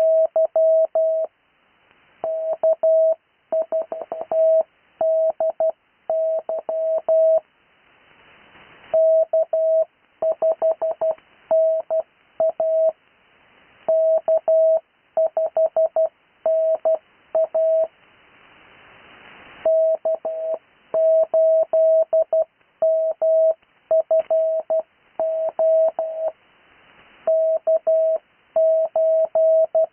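Morse code (CW): a single steady tone keyed on and off in dots and dashes, spelling out amateur radio callsigns, each callsign sent twice. A faint hiss swells in two longer pauses, about a third and two thirds of the way through.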